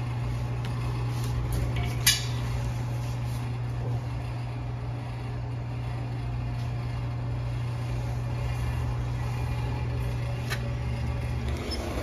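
Glass-door display cooler's refrigeration compressor running with a steady low hum after being recharged with refrigerant gas. A sharp click about two seconds in and another near the end.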